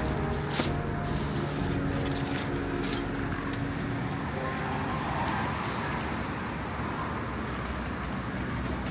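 Steady traffic and car engine noise, with a few knocks of cardboard boxes and groceries being loaded into an SUV's boot near the start.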